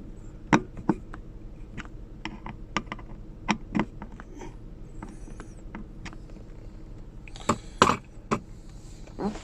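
Irregular light clicks and knocks of plastic centre-console parts being handled and screwed together, with a few louder knocks near the end.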